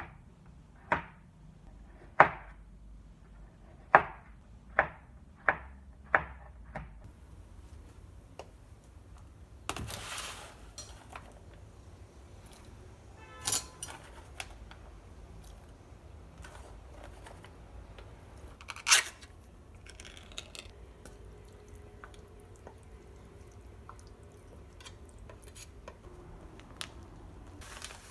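Kitchen work sounds: a run of sharp knocks and clinks of dishes and utensils in the first few seconds, then a few single louder clatters, over a low room hum.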